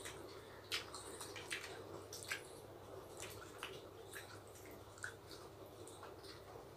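Faint, scattered wet clicks and smacks of two people chewing and eating rice and chicken curry with their fingers, over a low steady hum.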